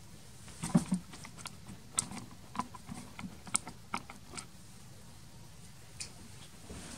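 Scattered light clicks and taps, about a dozen in the first four and a half seconds and one more near the end: handling noise as someone leans over and reaches toward the camera.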